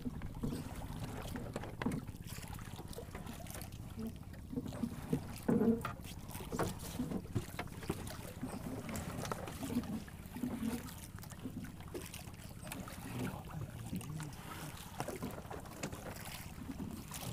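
Water lapping against a small outrigger boat's hull under a steady low rumble of wind on the microphone, with scattered knocks and rubbing as a line is hauled in by hand over the wooden gunwale.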